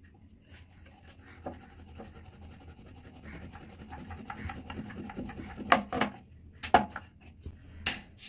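Wooden rolling pin rolling dough thin on a wooden rolling board, a steady rubbing and scraping of wood over dough, with a few sharp knocks in the second half.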